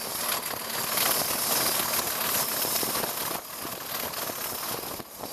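English Electric Class 40 diesel locomotive, its 16-cylinder 16SVT engine running under power as the train pulls away, heard from an open carriage window with wind rush. A faint steady high whistle rides over the noise, and the sound drops back somewhat about three and a half seconds in.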